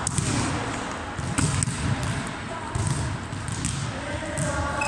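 Volleyballs being hit and bouncing on a gym floor: a series of sharp impacts that echo in the hall, with voices in the background.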